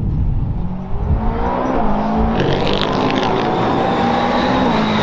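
McLaren 720S GT3 EVO race car's twin-turbo V8 accelerating down the straight toward the listener. The engine note climbs in pitch and steps a couple of times as it shifts up, getting steadily louder.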